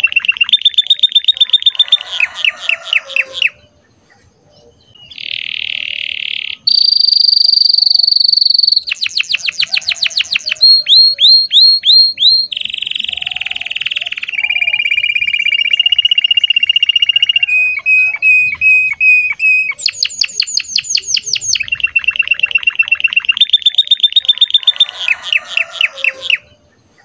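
Red domestic canary singing a long, loud, varied song: rapid trills and rolls, a buzzy held note and a steady high whistle, with a short break about four seconds in.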